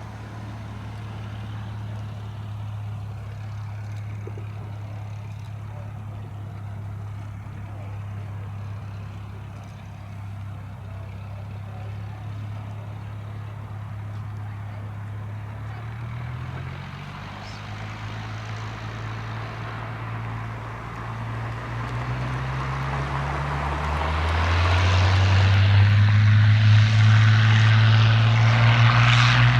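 Hawker Hurricane's Merlin V12 engine running steadily at low power. Its pitch then rises in steps, and over the last several seconds it grows much louder as power comes on.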